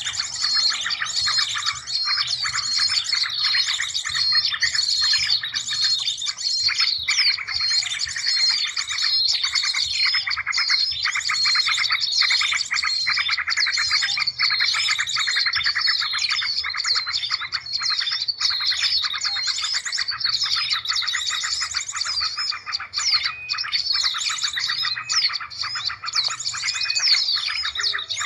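Bird-lure recording of many small songbirds chirping and trilling at once, a dense, unbroken chorus of quick, high, repeated calls, with a faint low hum beneath.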